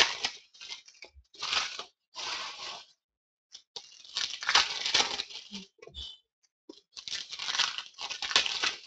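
Foil trading-card pack wrapper being torn open and crinkled by hand, in a series of rustling bursts with a short pause about three seconds in.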